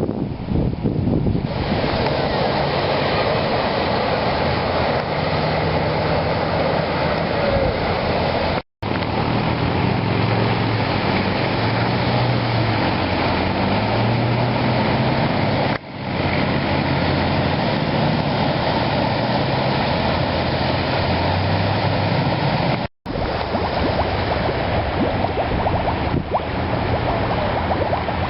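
Loud, steady rushing of fast-moving floodwater, broken by two sudden brief silences.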